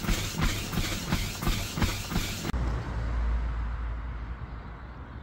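Footfalls thudding on a running UREVO treadmill, about three steps a second over the hiss of the belt and motor. About two and a half seconds in this cuts off to a steady low rumble of wind on the microphone.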